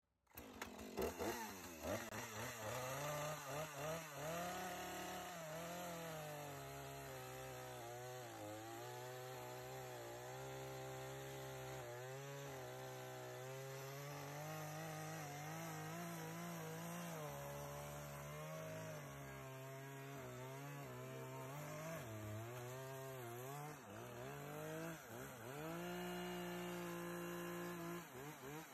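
Gas chainsaw cutting down through a pool table's bed. It is revved a few times about a second in, then runs under load with its engine speed sagging and picking up as the chain bites, and holds a steady higher speed near the end before dying away.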